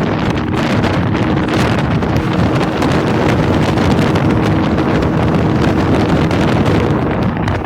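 Wind buffeting the microphone over the steady hum of a running engine.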